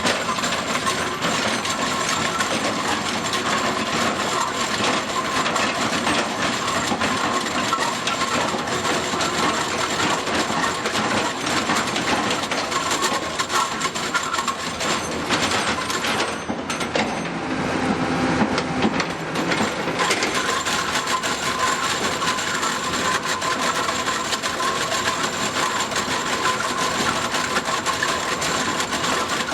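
Excavator-mounted hydraulic rotary drum cutter milling solid stone: a continuous dense clatter and grinding of the cutter's picks on rock over a steady machine hum. For a few seconds past the middle the high rattle thins out and a lower tone comes through, then the full clatter returns.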